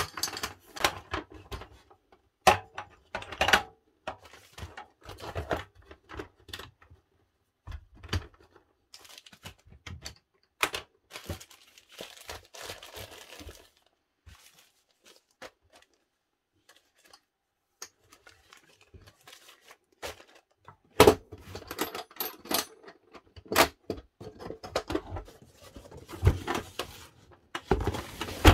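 Handling noise from packing a corded drill into its metal carry case: the cord and parts clicking and knocking against the case, and a plastic bag crinkling. After a quiet pause, louder knocks and a cardboard box being handled follow.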